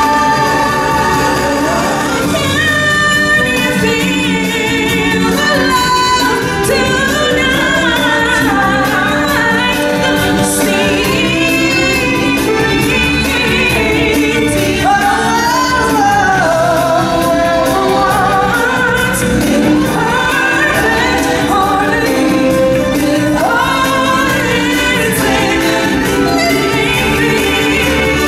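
Live stage-show music with singing: a lead vocalist on a microphone with a chorus and instrumental accompaniment, continuing without a break.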